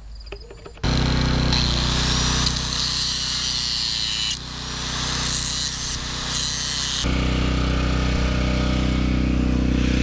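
Angle grinder running and grinding metal, a loud steady whir over a motor hum. It cuts in abruptly about a second in, and its sound shifts twice.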